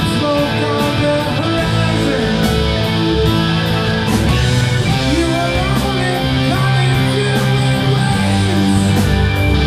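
Live rock band playing loud: electric guitars over a drum kit, with regular drum and cymbal hits keeping the beat.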